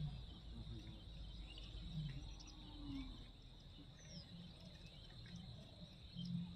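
Faint ambience: a steady high-pitched insect drone with a few faint bird chirps over a low rumble.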